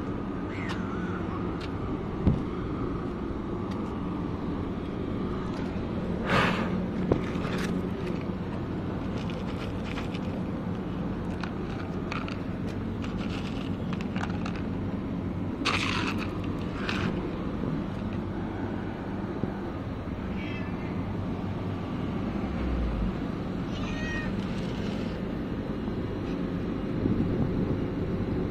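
Stray cats meowing now and then, with a few brief rattles of dry cat kibble shaken in a plastic tub and poured onto pavement, over a steady low background hum.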